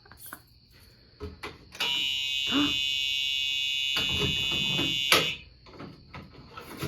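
Simplex fire alarm horn being test-sounded: one loud, steady electronic horn tone that starts about two seconds in, holds for about three and a half seconds, and cuts off abruptly when it is switched off.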